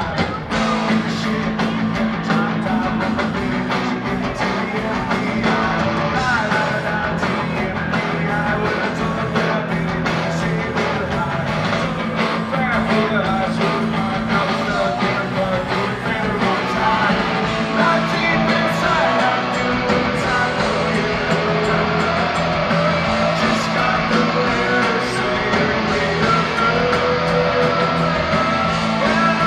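Live punk rock band playing loud: distorted electric guitar, bass and drums with a male voice singing, the full band coming in abruptly at the start. Heard from the crowd through the camera's microphone.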